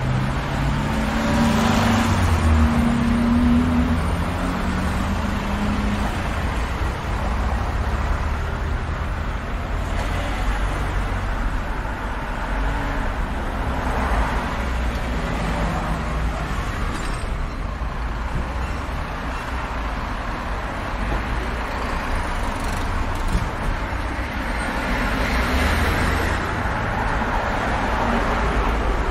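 Road traffic: a steady rumble of car engines and tyres, with vehicles passing by every few seconds. In the first few seconds a heavier engine drone sounds and rises slightly in pitch.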